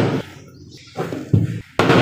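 Four dull knocks and thuds on a hard surface. The first, right at the start, and the last, near the end, are the loudest, with two lighter ones between them about a second in.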